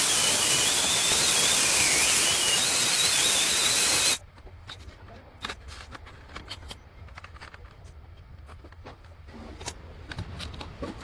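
Loud workshop power-tool machining noise with a wavering high whine, cut off abruptly about four seconds in. Scattered light clicks and taps follow.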